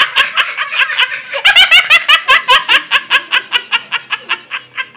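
Loud, high-pitched laughter in quick repeated peals. It breaks out afresh about a second and a half in and tails off near the end.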